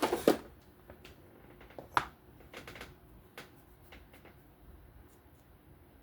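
Small hard clicks and knocks of knife parts and tools being handled on a work surface. A cluster of louder knocks comes right at the start, then one sharp click about two seconds in, then scattered faint ticks.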